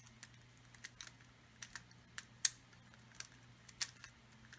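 A Moyu RS3M 2020 3x3 speed cube fitted with 4x4 corner pieces being turned quickly, giving irregular sharp clicks with a few louder snaps. The loose corner pieces snap out and back in as the layers turn.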